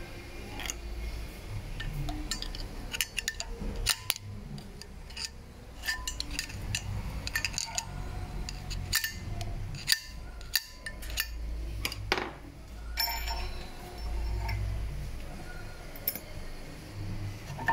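Wheel hub and brake disc spinning on a raised car, the bad wheel bearing grinding with irregular metallic clicks and clinks over a low rumble.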